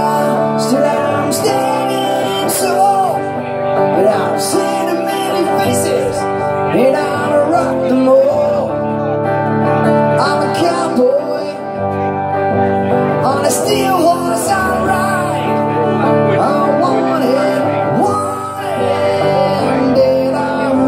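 Live acoustic guitar played through a small PA, with a man's voice singing along.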